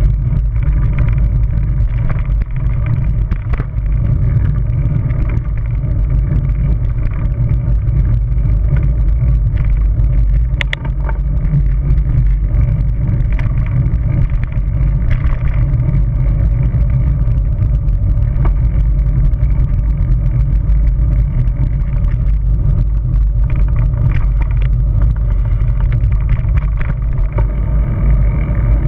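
Wind buffeting the microphone of a camera mounted on a moving bicycle: a loud, steady low rumble, mixed with tyre and road noise. A sharp click comes about ten seconds in.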